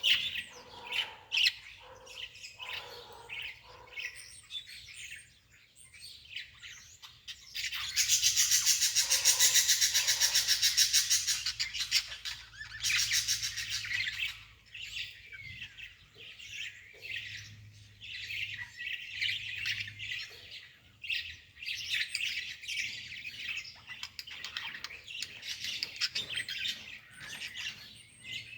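Small songbird chirping and twittering repeatedly, with a loud, fast trill lasting about four seconds, starting about eight seconds in.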